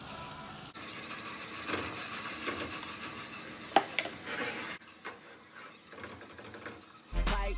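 A metal whisk stirring grits in a stainless steel saucepan, clinking sharply against the pot a few times, over the sizzle of salmon cakes frying in olive oil in a pan alongside. Music starts just before the end.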